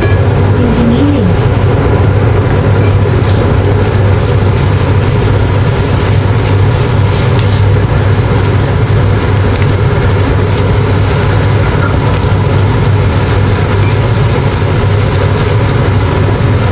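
A steady low hum over ground meat frying in a nonstick pan as a wooden spatula stirs and scrapes it.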